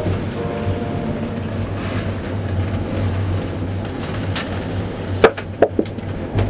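Steady low rumble of a moving vehicle heard from inside, with several sharp knocks or rattles in the second half.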